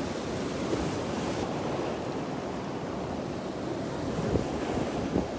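Ocean waves breaking steadily, with wind noise on the microphone.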